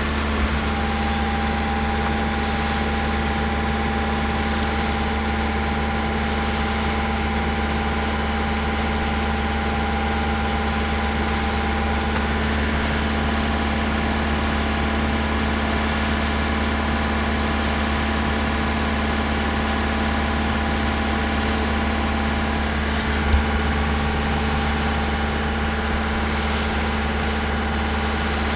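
Sailboat's inboard engine running steadily while motoring, an even low drone with a few steady tones over it.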